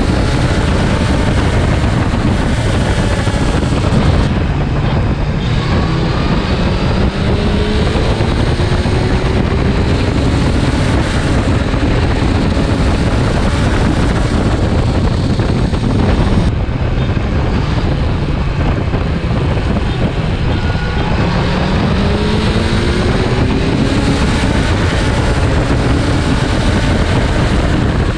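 Motorcycle engines accelerating hard through the gears under heavy wind noise: the pitch climbs, drops back at each upshift and climbs again, several times over.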